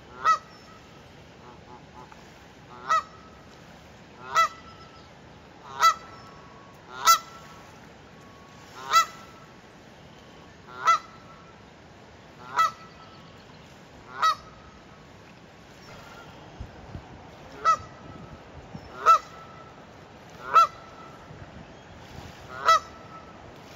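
A goose honking over and over: about a dozen short, loud honks, one every second or two, with a brief pause in the middle.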